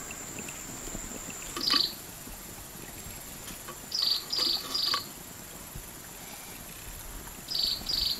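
Insects chirping: a steady high-pitched buzz with short, loud, pulsing chirps over it, one about two seconds in, three in quick succession about four seconds in, and two more near the end.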